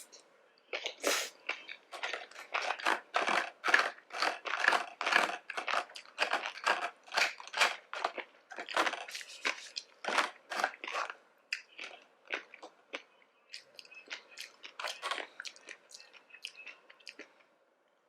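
Close-miked chewing and crunching of seaweed salad, a steady run of wet, crunchy bites about two a second that grows softer near the end.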